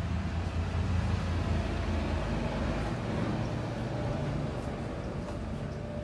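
An engine running steadily, a low hum with a few held tones over a noisy rush, slightly loudest about a second in.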